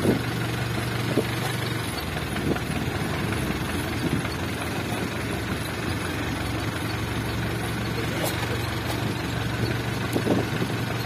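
Fishing boat's engine running steadily at trolling speed: a low, even hum under a wash of wind and sea noise.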